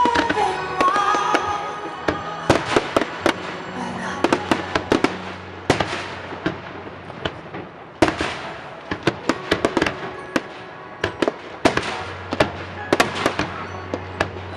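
Fireworks going off in a pyromusical show: rapid sharp bangs and crackling, with a few heavier clusters of bursts every few seconds. Music plays underneath.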